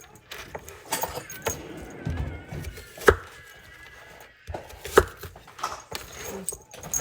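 Kitchen knife cutting an onion on a cutting board: a handful of separate sharp knocks a second or two apart, with light clatter and handling in between.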